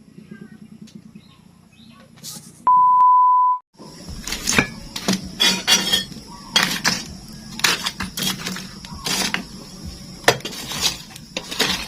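A loud, steady single-pitched beep lasting about a second, about three seconds in. Then a string of sharp clinks and knocks of dishes and kitchen utensils being handled.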